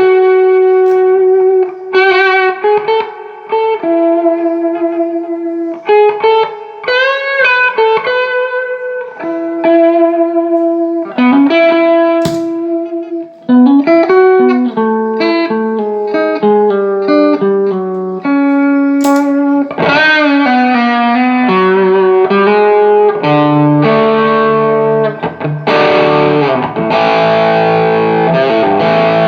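Electric guitar played through a Carr Lincoln EL84 valve amp fitted with new JJ EL84 power valves and biased about 15% cooler than from the factory. It plays single-note lead lines with string bends, then moves into fuller, distorted chords near the end.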